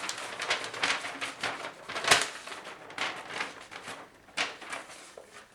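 Quick small clicks, rattles and scrapes of hard parts being handled on a computer case, several a second at first, with the sharpest click about two seconds in and one more near the end, then they thin out.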